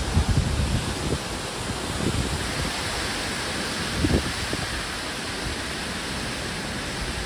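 Strong hurricane wind blowing steadily, with low rumbling gusts buffeting the microphone near the start and again about four seconds in.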